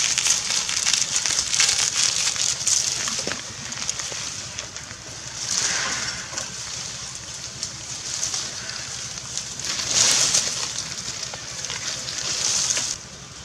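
Dry fallen leaves rustling and crackling, swelling louder several times.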